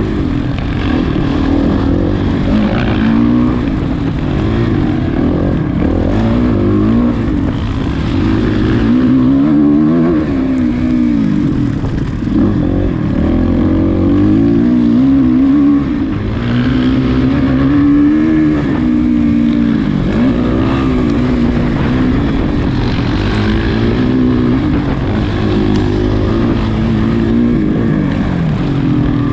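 Off-road racing dirt bike engine revving up and down again and again as the rider works through the throttle and gears over rough terrain.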